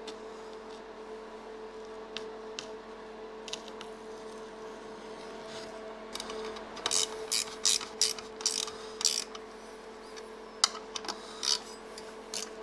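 Runs of quick, light clicks, a few a second, from the second half on, as a metal boat-seat swivel pedestal base and loose hardware are handled and set onto a plywood board on a metal workbench. A steady hum runs underneath.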